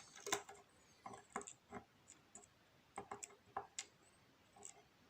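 Faint, irregular small metallic clicks and taps from a disassembled Euro cylinder lock's pins and core being handled.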